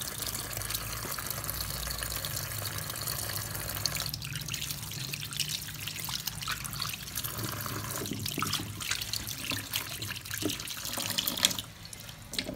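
Tap water running and splashing over duck eggs in a plastic colander in a steel sink as hands rub them, rinsing off soap. The flow drops briefly near the end.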